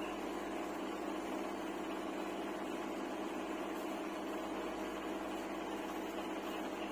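A steady, even hum with no breaks or separate strokes.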